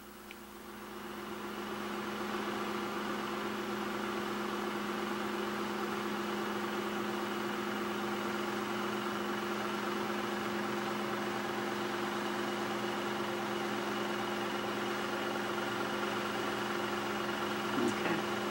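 A steady mechanical hum made of several unchanging tones, fading in over the first two seconds and then holding level.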